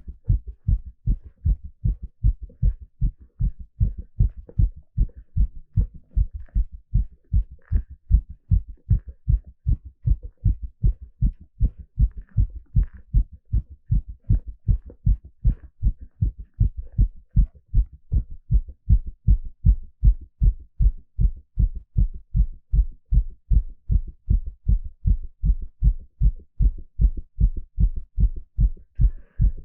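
A man's heartbeat picked up through a stethoscope: low, dull thuds repeating in a steady, regular rhythm that grows slightly louder from about halfway through.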